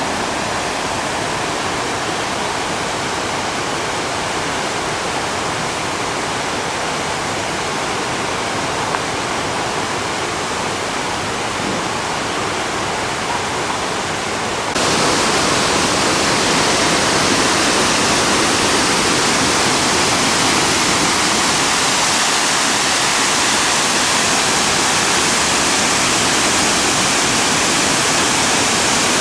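Mountain stream rushing steadily over rocks. About halfway through the rush jumps abruptly louder and brighter, then holds steady.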